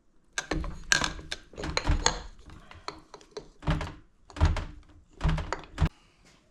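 Irregular knocks and clunks of tools and parts being handled during motorcycle engine teardown, about eight in all, some with a short ring, stopping near the end.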